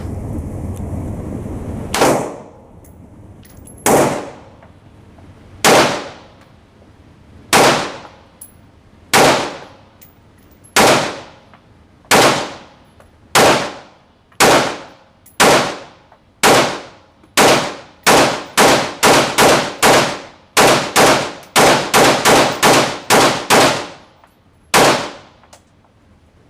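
A firearm fired repeatedly: about two dozen sharp shots, a second or two apart at first, then quickening to two or three a second, with one last shot near the end.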